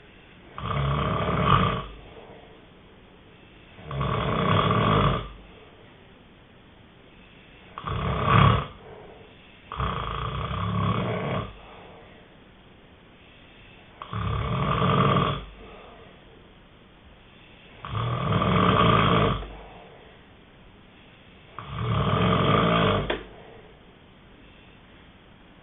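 A sleeping person snoring: seven loud snores at a steady pace, roughly one every three to four seconds, each lasting about a second.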